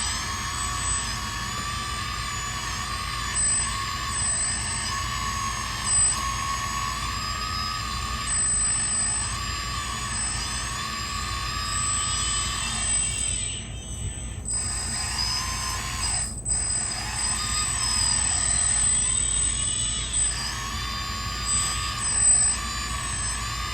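Several radio-controlled construction models' electric motors whining together, with overlapping high tones that rise and fall in pitch as the machines work. There is a brief lull about thirteen to fourteen seconds in.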